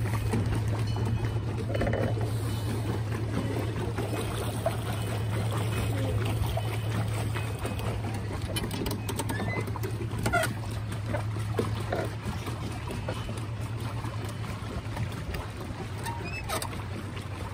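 Pedal boat on the water: the paddle wheel churning and water trickling and splashing, over a steady low hum that fades toward the end.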